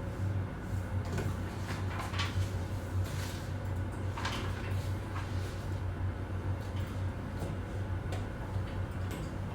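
Office ambience: a steady low hum with scattered soft knocks and clicks, like cupboards, doors or drawers being handled, most noticeable about two and four seconds in.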